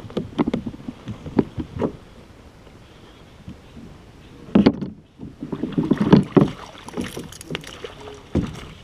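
Irregular knocks, thumps and rustling on a fishing kayak as a small smallmouth bass is landed and handled aboard. The knocks come in two busy clusters, one at the start and one just past the middle, with a quieter stretch between.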